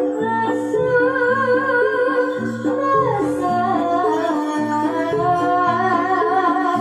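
Javanese gamelan music accompanying a barongan dance: metal-keyed instruments playing a stepped melody over a steady drum beat, with a singer's wavering vocal line on top, amplified through a sound system.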